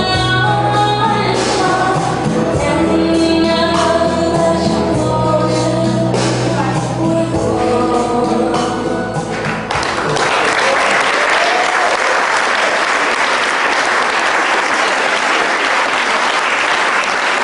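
Music playing for a couple's dance stops about ten seconds in, and an audience breaks into applause that continues to the end.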